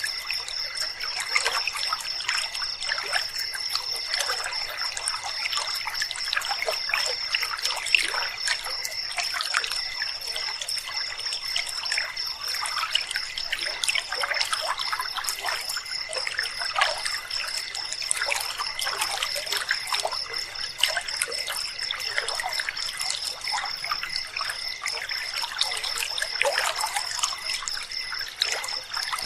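River water trickling and gurgling over stones, with a steady, high-pitched, finely pulsing trill of night insects over it.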